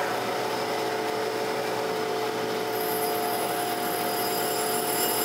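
Surface grinder running while a diamond dresser is traversed across the face of the grinding wheel: a steady motor and spindle hum under a grinding hiss, with a high-pitched hiss joining about three seconds in. The diamond is still skipping a little on the wheel, a sign that the wheel is not yet running true.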